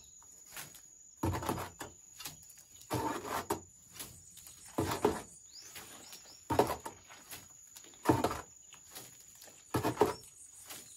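Mason's trowel loading wet cement mortar and flinging it against a brick wall to lay a spatter coat (chapisco): a short wet scrape-and-splat about every one and a half to two seconds, six times.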